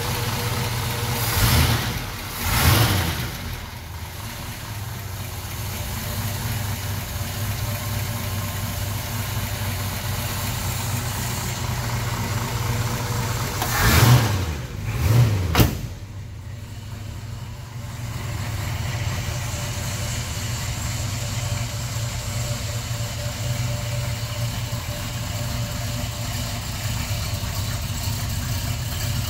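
1969 Chevrolet Camaro's V8 engine idling steadily. It is revved briefly twice near the start and three more times about halfway through, then settles back to idle.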